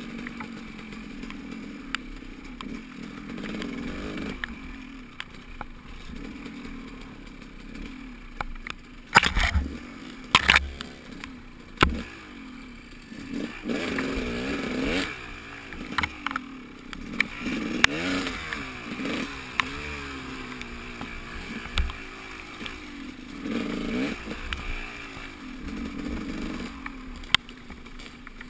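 Motorcycle engine running during a ride, its pitch rising and falling repeatedly as it revs up and eases off. There are a few sharp knocks about a third of the way in.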